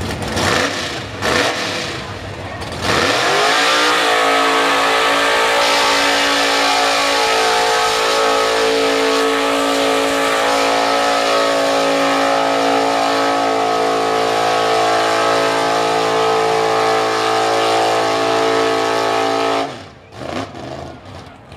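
Mud-bog pickup's V8 engine blipping the throttle unevenly, then climbing to high revs about three seconds in and holding there steadily at full throttle as the truck ploughs the mud pit. The revs drop away suddenly near the end.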